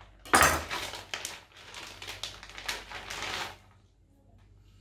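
Knife slitting open a vacuum-sealed plastic bag on a wooden chopping board, with the plastic crinkling and rustling as it is pulled apart. The loudest is a sharp rip about half a second in, and the handling stops at about three and a half seconds.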